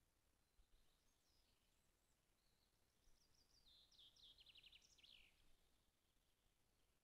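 Faint songbird singing in the forest: a few scattered high notes, then a quick run of rapid notes about halfway through.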